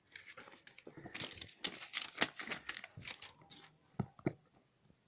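Phone packaging crinkling and rustling as it is handled, a dense run of crackles for about three seconds, followed by two sharp knocks a moment apart near the end.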